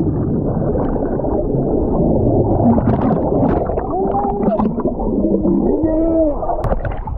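Water churning and bubbling, heard muffled from under the water just after a person jumps into a lake. Muffled, wavering voice-like tones rise and fall from about four to six and a half seconds in.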